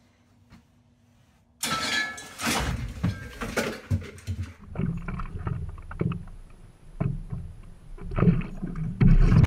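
A person tumbling out of a headstand onto a yoga mat with a sudden loud rustle and bump, then water lapping and sloshing around a stand-up paddleboard with wind on the microphone, in irregular surges.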